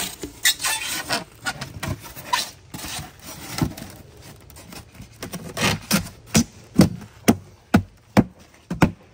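Rigid pink foam insulation board scraping and squeaking against the wooden joists as it is pushed down into the floor frame. From about five seconds in come a run of sharp thumps, about two a second, as the board is pressed down into place.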